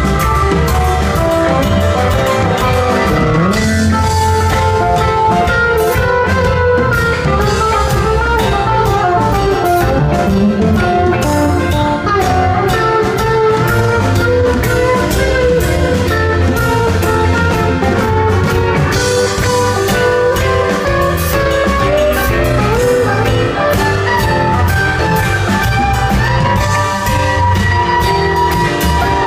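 Live rock band playing: electric guitars with bass guitar and drum kit, loud and steady.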